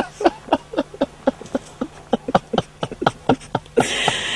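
A woman laughing in a quick run of short, breathy pulses, about four a second. Near the end comes a brief rustle of a nylon jacket.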